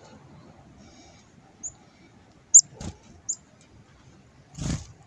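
Black-capped chickadees giving three short, very high chip notes. Two brief fluttering bursts of wingbeats close to the hand come about three seconds in and near the end.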